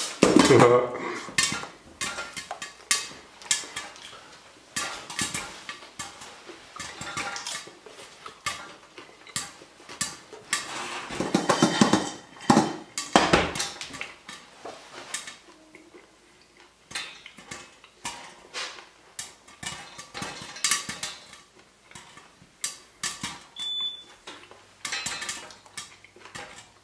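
Popcorn kernels popping in a covered stainless-steel saucepan: many sharp, irregular pops and clicks against the pan and its glass lid, busiest in the first half, with the lid clattering on the pan as it is handled. Near the end comes a short beep from the induction hob's touch controls as the heat is turned down.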